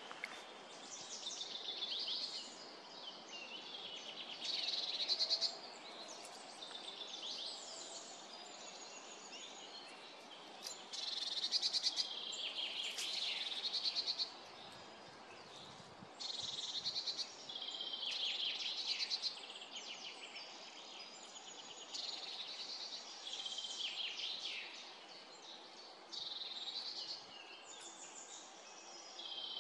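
Songbirds singing: short trilled and chirping song phrases follow one another every second or two, over a faint steady hiss.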